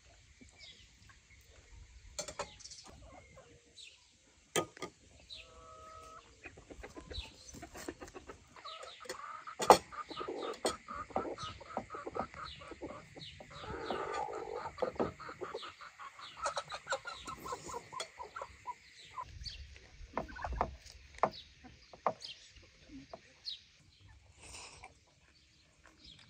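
Domestic chickens clucking, with a quick run of repeated clucks from about nine to fifteen seconds in, amid scattered clicks and knocks.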